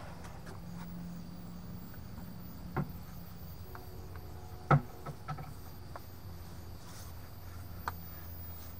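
Brush-painting a wooden door frame: a few short light taps and knocks, the loudest a little past halfway, over a low steady hum and a faint high, steady chirring.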